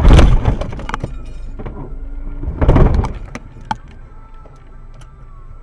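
A vehicle crash: two loud crashing noises about two and a half seconds apart, each about half a second long, followed by a few sharp clicks and a quieter steady background noise.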